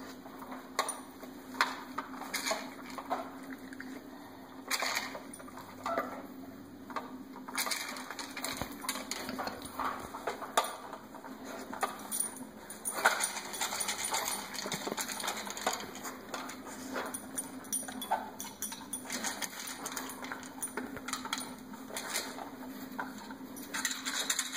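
Plastic dog puzzle toy clicking and knocking irregularly as a pit bull puppy noses and pushes at its moving parts to get the treats out.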